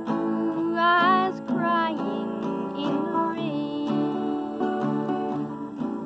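A woman singing slow held notes with vibrato over a strummed acoustic guitar.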